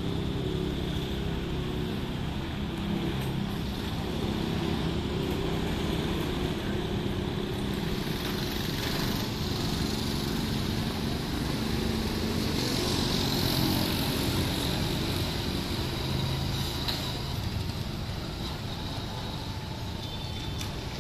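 Road traffic going by on a town street: motorbikes and cars passing, with one passing closer and louder a little past the middle.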